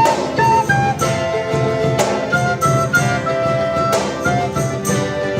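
Instrumental break of a live folk-style band song: a held melody line that moves from note to note over strummed guitar and a steady beat.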